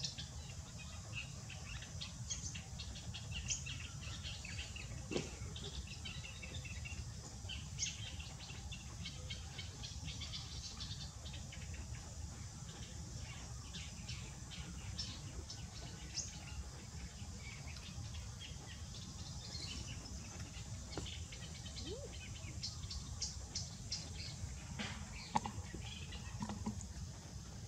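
Small birds chirping in scattered short, high calls over a steady low rumble.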